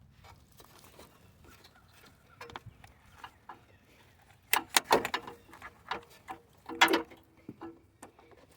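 Scattered clicks, taps and knocks of hand work on car parts and tools, with a cluster of sharper clatters about halfway through and another, with a brief metallic ring, near the end.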